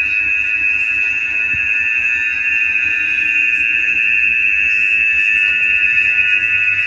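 A loud, steady, high-pitched tone made of several close pitches layered together, holding unchanged.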